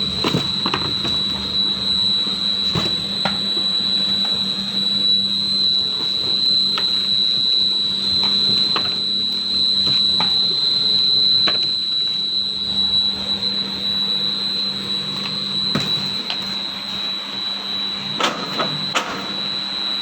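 Cardboard box grooving machine running, with a steady high-pitched whine over a low hum and scattered sharp clicks, a few close together near the end.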